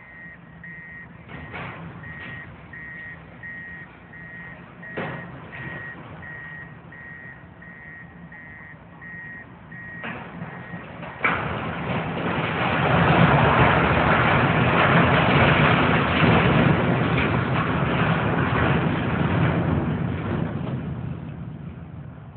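A heavy machine's reversing alarm beeping at an even pace, about one and a half beeps a second, over a low engine hum. About eleven seconds in, a sharp crack is followed by a long, loud crash and rumble as a section of the peanut plant's structure comes down. The crash goes on for several seconds and then fades.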